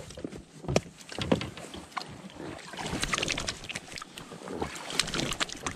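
Handling noises aboard an inflatable boat: clothing and a landing net rustling, with irregular light knocks and taps against the boat.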